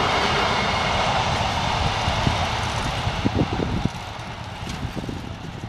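Tail of a freight train of empty flat wagons and its brake van rolling away over the rails: a rattling rumble that fades steadily, with a few low knocks from the wheels about halfway through.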